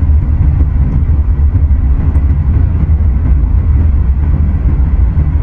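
Steady low rumble of road and engine noise heard from inside a car's cabin while driving.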